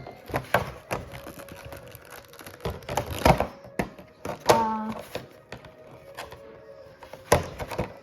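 Handling noise of a trading card being worked into a plastic protective card sleeve: irregular rustles, taps and small knocks. A short hummed vocal sound comes about halfway through.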